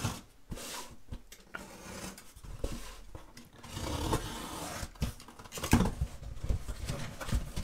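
Packing tape on a cardboard box being slit and the box flaps pulled open: scraping and rustling of cardboard and crumpled kraft packing paper, with a few sharp knocks in the second half.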